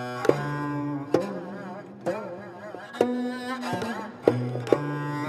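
Korean traditional music: a held melody line with wavering vibrato, punctuated by several sharp drum strokes at uneven spacing.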